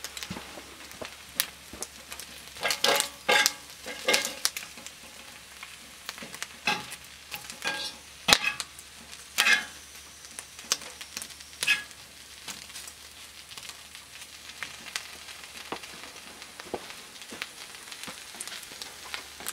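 Turkey bacon sizzling on a cast iron Dutch oven lid used as a griddle, with frequent sharp pops and clicks through the first half that ease off to a quieter, steady sizzle with small crackles near the end.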